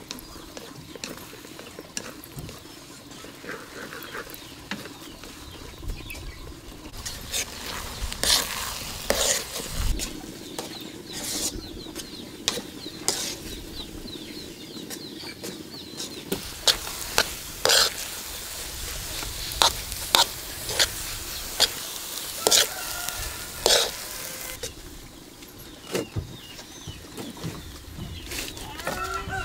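Cooking sounds: a utensil stirring and knocking in a pot, with many irregular sharp clicks and taps over a low sizzle. A chicken clucks a few times in the background in the second half.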